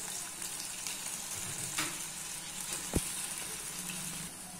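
Breaded potato-and-cheese balls deep-frying in hot oil, a steady sizzle with crackling. A single sharp click sounds about three seconds in.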